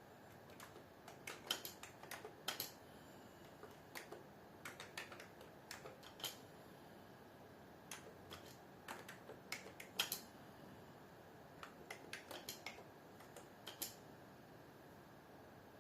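Typing on a computer keyboard: irregular keystroke clicks, some in quick runs, over a faint steady hiss, with a louder strike about ten seconds in.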